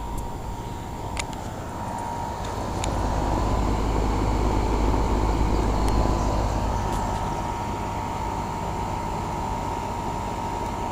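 A vehicle passing by: a rush of noise that builds over a couple of seconds, is loudest about four to six seconds in, and slowly fades, over a steady faint hum.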